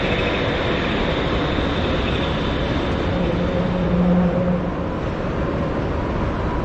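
Steady city street noise of traffic, a constant rumble and hiss, with a low drone that swells for a second or two past the middle.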